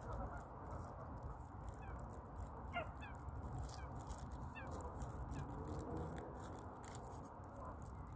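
Waterfowl calling on the lake: a scatter of short, slightly falling calls, several in a row about three seconds in, over a steady low rumble.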